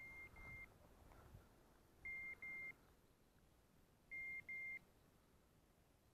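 Electronic beeper collar on a hunting dog sounding short, high double beeps that repeat about every two seconds, four pairs in all, over faint wind noise.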